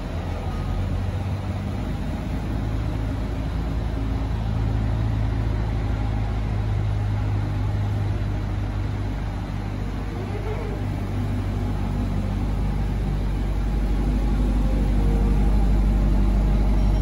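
Chevrolet Corvette C8's mid-mounted V8 running steadily at idle, getting slightly louder near the end.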